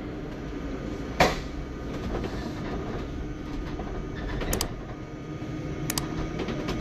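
Cabin noise inside a NESO hydrogen fuel-cell bus: a steady low rumble with a sharp knock about a second in and a few lighter clicks and rattles later.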